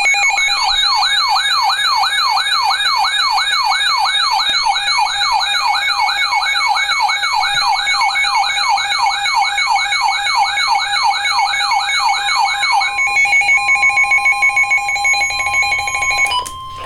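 Emergency weather alert receivers sounding together for a severe thunderstorm warning: a siren-like alarm sweeping up in pitch about twice a second over steady alert tones. About 13 seconds in, the sweeping stops and steady tones remain, which cut off near the end.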